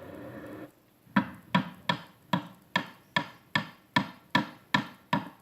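Sound-effects recording played from a speaker to puppies to get them used to noises: a steady noise cuts off under a second in, then a regular hammer-like knocking starts, about two and a half sharp ringing strikes a second.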